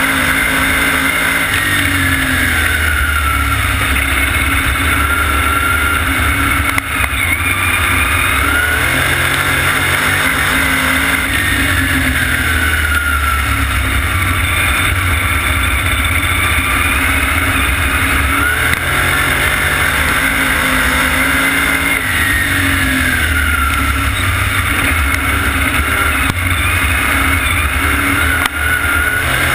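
Vintage supermodified race car's engine at race pace on a dirt oval, heard from on board and loud throughout. Its pitch drops as the driver lifts into each turn and climbs back as he gets on the throttle down the straight, about every ten seconds.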